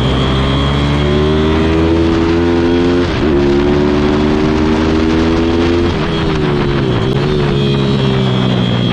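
Pit bike engine heard from on board the bike, revving hard through a lap. The engine note climbs steadily, drops sharply about three seconds in, dips again around six and seven seconds in, then climbs once more.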